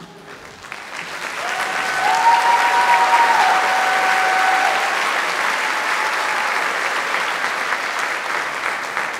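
Audience applause that builds up about a second in and then holds steady.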